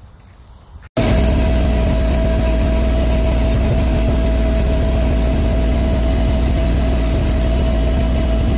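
Bobcat MT100 mini track loader's engine running steadily: a deep hum with a steady whine over it, starting suddenly about a second in.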